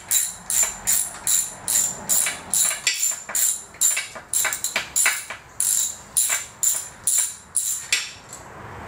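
Ratchet wrench clicking in quick, even strokes, about three a second, as a nut is run off one of the studs holding a Mercruiser Alpha One Gen 2 outdrive; the clicking stops near the end.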